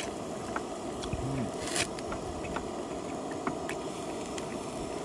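Wooden chopsticks scraping and tapping in a disposable aluminium foil tray, with scattered light clicks and one short scrape about two seconds in.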